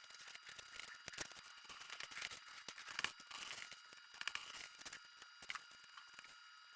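Faint crackling, scratchy strokes of a blade cutting through foam core board, a run of short rough cuts with the loudest near the middle.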